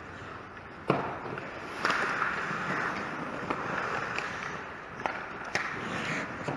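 Ice hockey play at the goal crease: a sharp knock of puck or stick about a second in, then skates scraping the ice with a few more stick and puck clacks.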